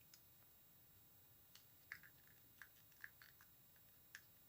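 Near silence with a handful of faint, short clicks and taps, about seven of them, scattered through: hands handling modelling-clay pieces at a work table.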